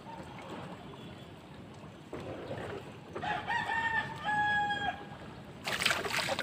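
A rooster crowing once, a drawn-out call in a few parts starting about three seconds in, over a low hiss of wind and water. A short burst of noise comes near the end.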